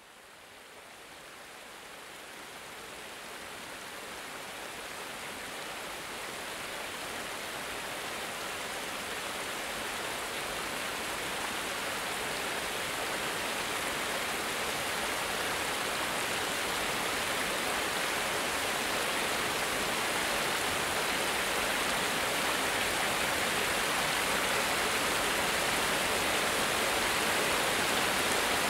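Water rushing down a small cascade over a sloping stone spillway: a steady, even hiss of running water that fades in slowly and grows louder through most of the stretch.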